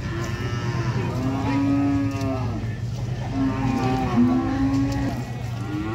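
Cattle mooing: two long, drawn-out moos, the first just after the start and the second from about halfway through.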